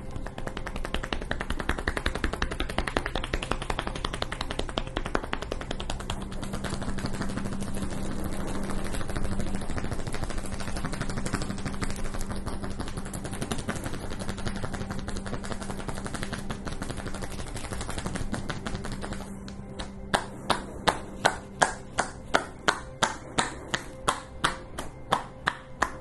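Percussive massage strikes on the body: a long run of very fast, dense tapping, then from about twenty seconds in slower, distinct slaps at roughly two to three a second.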